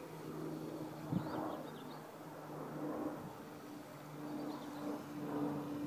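Distant hum of a homemade RC Chris Craft runabout model boat's motor, a low drone that fades in and out, with a few bird chirps and a brief knock about a second in.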